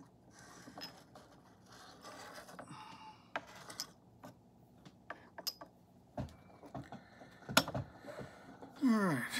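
Light clicks and clinks of small ceramic tea cups and a gaiwan being handled and set down, several separate taps with the sharpest about two thirds of the way in. Near the end a short falling hum of a voice.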